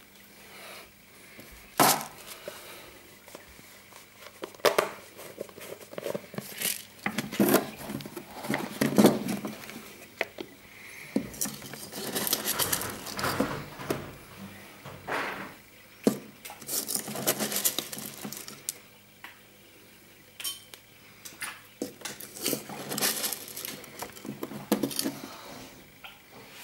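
Irregular clinking and clattering of hard objects, a sharp clack about two seconds in and clusters of rattling through the rest.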